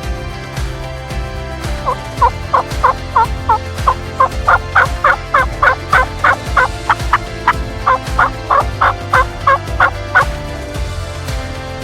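Turkey yelping: a long, even run of about thirty yelps, three or four a second, starting about two seconds in and stopping near the end.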